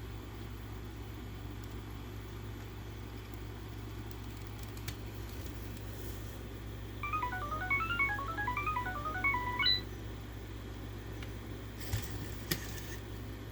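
Sony Aibo ERS-210 robot dog playing a short electronic melody of quick beeping notes, about three seconds long, starting about halfway in. A steady low hum runs underneath, and a couple of sharp clicks come near the end.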